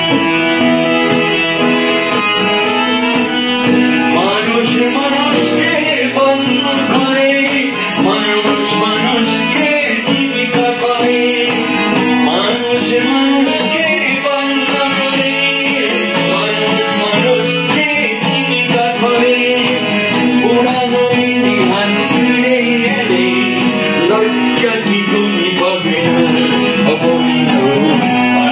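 Hand harmonium and strummed acoustic guitar playing a song together, with steady sustained chords.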